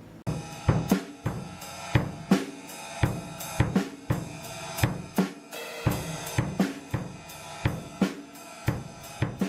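Background music with a steady drum-kit beat, cymbals and hi-hat over a pitched backing, starting abruptly just after the start.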